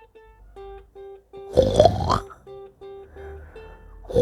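A person imitating loud snoring, twice: about a second and a half in and again at the very end, each snore short, rough and rising in pitch. Soft plucked-string music plays underneath.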